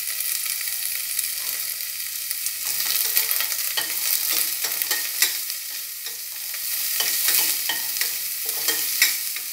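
Chopped onion sizzling gently in a little oil in a stainless steel pan on low flame, with a spoon stirring and scraping against the pan bottom in irregular strokes from about three seconds in.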